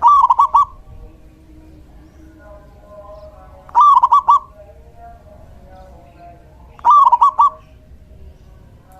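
Male zebra dove (perkutut) singing: three phrases about three seconds apart, each a quick run of about four cooing notes.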